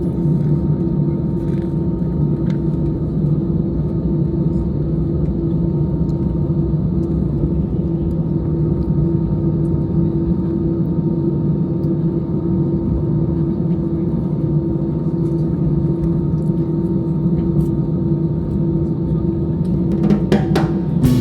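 Steady low drone of a jet airliner's cabin, with a constant hum running under it.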